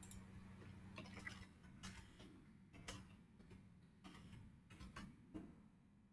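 Faint computer keyboard keystrokes: a few scattered sharp clicks, irregularly spaced, over a low electrical hum that fades out after about a second and a half.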